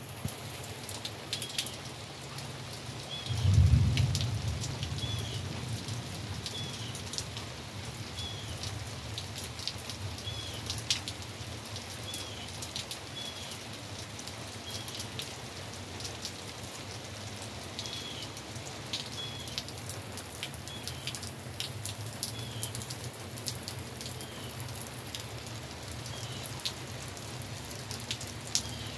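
Steady rain falling on trees and lawn, with many sharp drip ticks. A short high chirp repeats about every second and a half. A brief low rumble starts suddenly about three and a half seconds in and fades over a couple of seconds.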